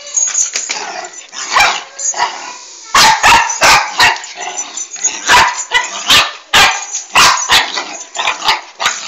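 A dog barking at a rooster it is fighting: rougher, noisier sounds at first, then a rapid run of about a dozen loud, sharp barks from about three seconds in.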